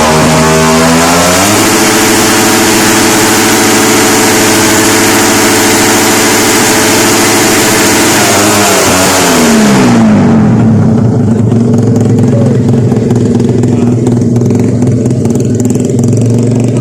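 Very loud motorcycle exhaust pipe being revved. The revs climb in the first second and a half and are held high for about seven seconds. They drop back about ten seconds in, and the engine then settles into a steady idle.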